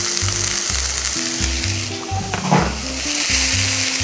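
Chopped onion sizzling in hot olive oil in a frying pan as it is tipped in and stirred with a spatula. There is a single knock about halfway, and the sizzle grows louder from about three seconds in.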